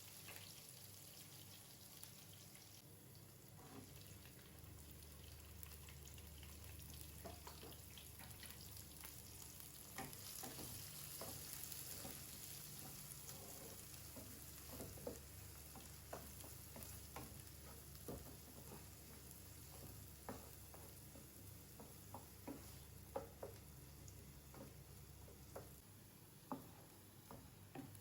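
Food sizzling quietly in a frying pan while being stirred, with a steady hiss and scattered taps and scrapes of the utensil against the pan.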